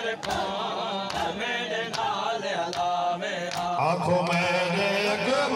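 Men chanting a noha (Shia lament) over the steady beat of matam, hands striking chests about once a second.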